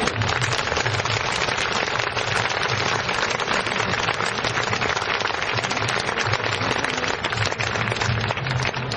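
Fireworks crackling densely and without a break: a fast, steady stream of small cracks.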